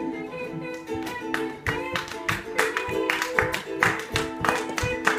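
Guitar strummed in a steady rhythm, chords ringing with no singing: an instrumental passage of a live song.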